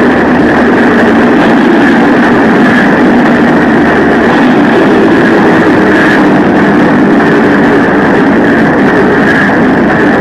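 Blackened harsh noise music: a loud, unbroken wall of distorted noise over a heavy low drone, with no beat or voice.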